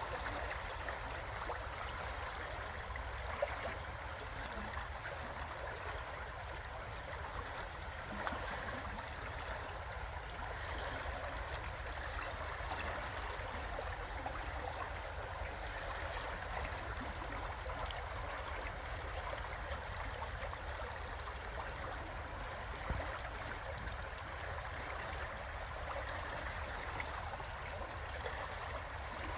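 River water flowing: a steady, even rush of running water that holds unchanged throughout.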